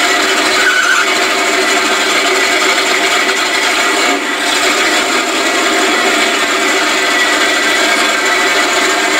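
A 4x4 mud truck's engine running loud and steady at an unchanging pitch, heard from inside the caged cab as the truck moves slowly.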